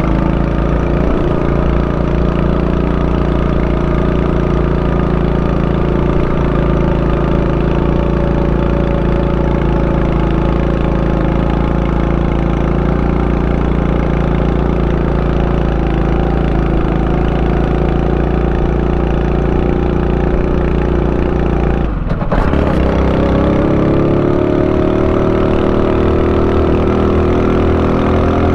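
Honda Super Cub 90's air-cooled four-stroke single-cylinder engine running steadily under way. About 22 seconds in the note breaks off briefly, as at a gear change, then picks up again and slowly rises as the bike pulls.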